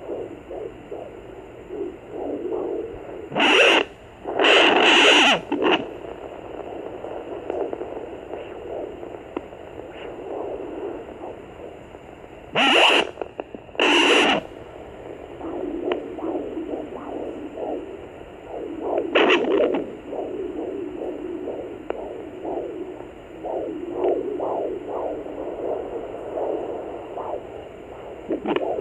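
A Sonoline B fetal doppler picking up a 20-week pregnancy: a steady, pulsing whoosh with no clean, even heartbeat. Several loud rushes of noise break in, two close together near the start, two more near the middle and one later on.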